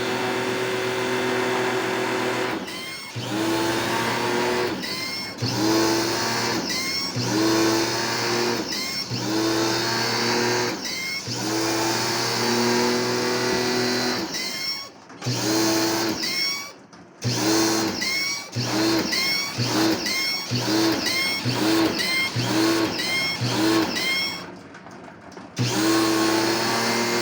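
A small electric motor switched on and off over and over. Each time it spins up with a rising whine, runs briefly and drops off. The bursts come quicker in the second half, with a few abrupt breaks.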